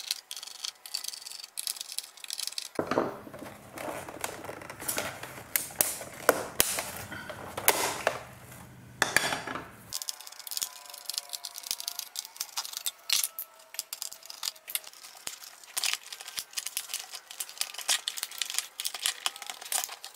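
Hands and a screwdriver working on a plastic LCD monitor's stand and casing: a steady stream of small clicks, taps, knocks and scrapes of plastic and metal as the stand's screws are undone and the monitor is moved about.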